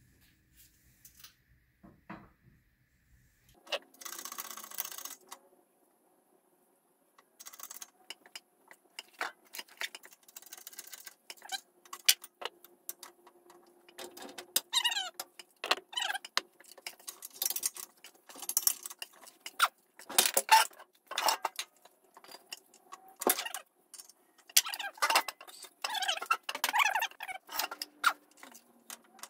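Metal and plastic parts being handled and fitted for a bushing press job: a short hiss about four seconds in, then a long irregular run of clicks, knocks and clinks with occasional short squeaks.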